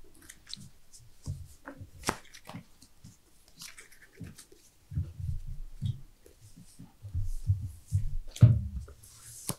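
Sleeved trading cards being gathered, slid and tapped down on a playmat, with soft thumps of hands on the table and a sharper knock about eight and a half seconds in.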